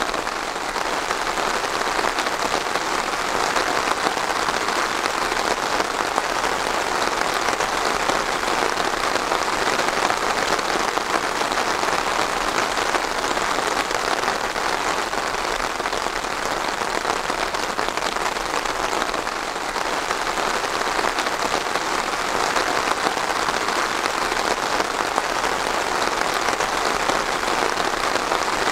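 Steady rain falling on a surface, a dense even patter with fine drop ticks and no let-up.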